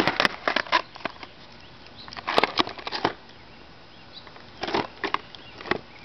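Skateboard clattering on asphalt: three short clusters of sharp clacks and knocks, at the start, about two and a half seconds in and near the end, as the rider steps on the tail and works the board.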